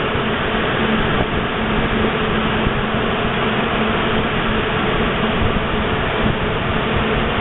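Steady rushing noise with a low, even hum running underneath, unchanging throughout.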